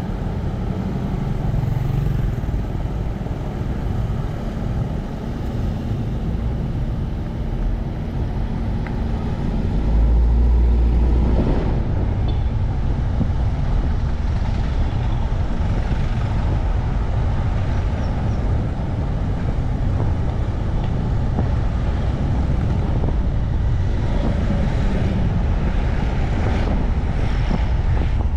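Steady low rumble of a moving road vehicle, engine and road noise mixed together, swelling louder for a second or so about ten seconds in.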